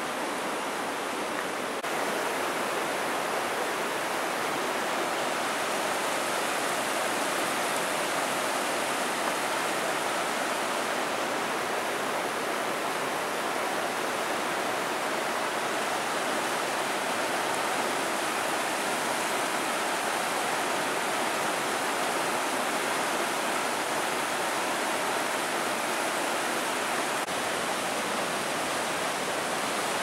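The Rhine rushing through rocky rapids above the Rheinfall: a steady, even sound of white water that grows a little louder about two seconds in.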